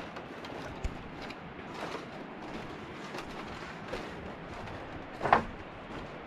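Footsteps and creaks on a bamboo walkway: a few irregular knocks, the loudest about five seconds in, over a steady hiss.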